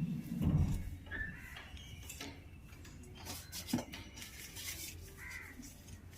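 Metal pots and utensils clinking and knocking as dosa batter is handled, with a louder knock about half a second in. A crow caws near the end.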